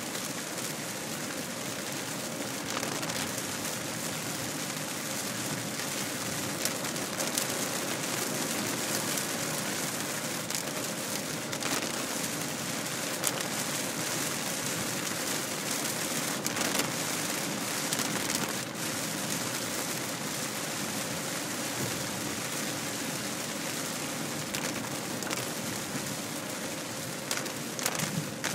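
Heavy rain hitting a car's windshield and roof, heard from inside the moving car as a dense, steady hiss with scattered louder drops.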